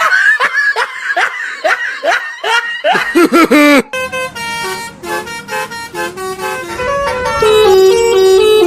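Multi-tone telolet bus horn playing tunes. Short sliding toots come about three a second, with a louder sliding one about three seconds in. After a break about four seconds in, a melody of held notes stepping up and down plays.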